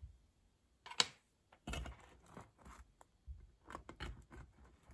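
Cast-iron grill press and square cast-iron grill pan being handled: a sharp metal knock about a second in, then a run of shorter knocks and scrapes as a wooden spatula works in the pan.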